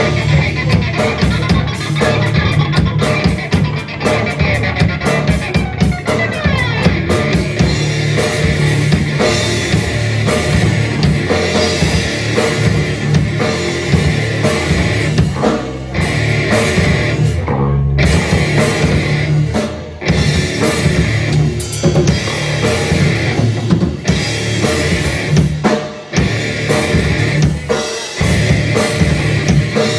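Live heavy rock band playing: a pounding drum kit and distorted electric guitars. The band breaks off for short stops several times in the second half.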